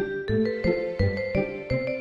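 Cheerful background music: a melody of short struck notes over a steady low beat, about three notes a second.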